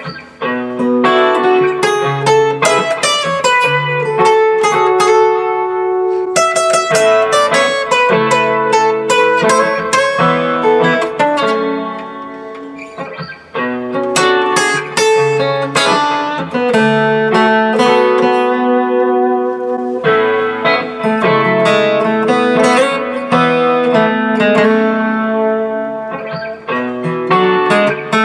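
Steel-string acoustic guitar played with a flatpick: picked melody lines and chords over a looped chord progression, with many quick note attacks over ringing lower notes.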